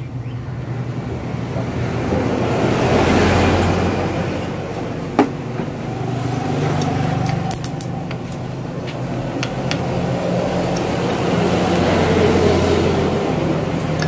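Road traffic going by: motor vehicles pass, their engine noise swelling and fading twice, loudest about three seconds in and again near the end. A single sharp click comes about five seconds in.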